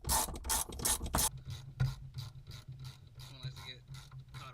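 Ratchet wrench clicking, about five clicks a second, as a bolt is backed out of a car's short shifter assembly. About a second in it turns to fainter clicking and scraping.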